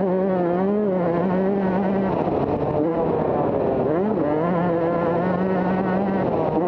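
Motocross bike engine running at steady revs under throttle. About two seconds in it drops off the throttle briefly, and about four seconds in the revs dip and pick up again before holding steady.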